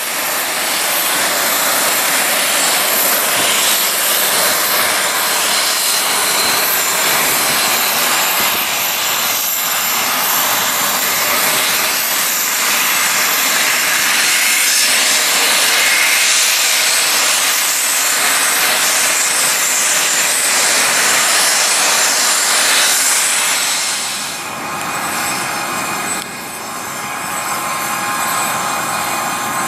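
Embraer Phenom 300 business jet's twin turbofan engines running loud and steady, a rushing jet noise with a high whine, as the jet taxis past. The sound dips about 24 seconds in, then rises again as the jet starts its takeoff roll down the runway.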